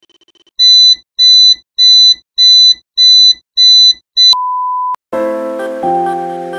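An edited-in electronic targeting sound effect: seven loud, high beeps at about two a second, then one steady beep tone lasting under a second. Electronic music starts about five seconds in.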